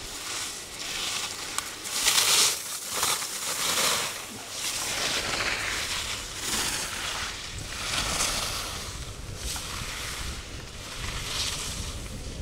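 Skis carving turns on snow: a hissing scrape that swells and fades about once a second, with wind buffeting the microphone.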